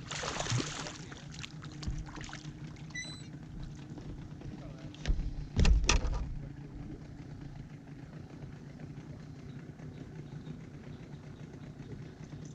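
Water splashing and handling noise aboard a small inflatable boat. The loudest sound is a thump about five to six seconds in, over a faint steady low hum.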